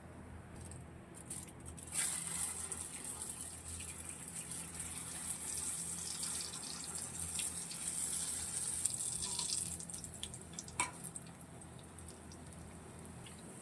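Water running from a tap into a sink. It starts abruptly about two seconds in and fades out after about eight seconds, with a few clinks, one sharp clink near the end.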